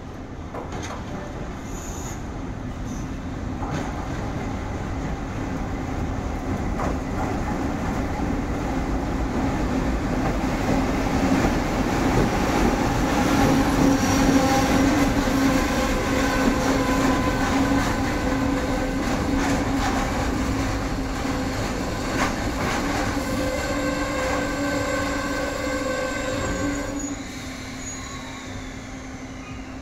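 EF65 electric locomotive hauling two Chiki 5200 flat wagons past at low speed. It grows louder as it approaches and is loudest about halfway through, with a steady hum over the noise of wheels on rails. The sound drops off sharply near the end as it moves away.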